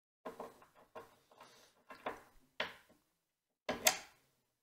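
Small metal hardware being handled: steel washers clicking and knocking as they are fitted onto bolt ends sticking up through the board. About five short knocks, the loudest near the end.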